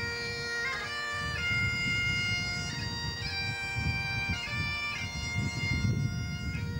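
Highland bagpipes playing a tune: a melody of held notes moving over a steady unbroken drone, with an uneven low rumble underneath.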